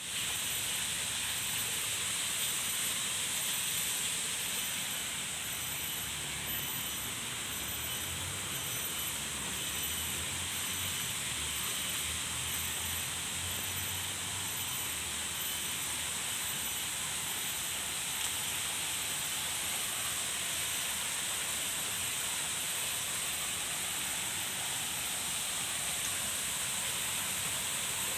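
Steady outdoor ambience: an even, high-pitched hiss that holds unchanged throughout, with a faint low rumble partway through.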